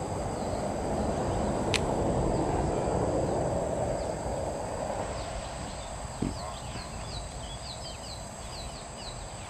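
Outdoor ambience with a steady high insect drone and a rushing noise that swells over the first few seconds and then eases. From about halfway there is a run of quick, falling chirps, about two a second.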